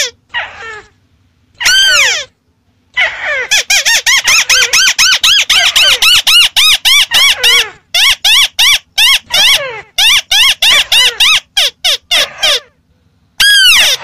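White-browed crake calling: fast chattering runs of short notes, each rising then falling in pitch. There is a brief burst about two seconds in, a long unbroken run from about three seconds in to near twelve, and a pause before another burst near the end.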